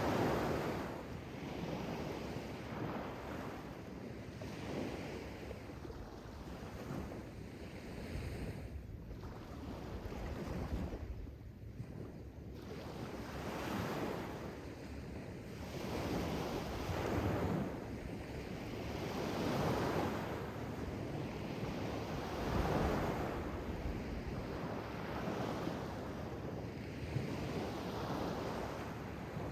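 Sea waves washing in and drawing back, the surf noise swelling and easing every couple of seconds, with a brief lull about eleven seconds in.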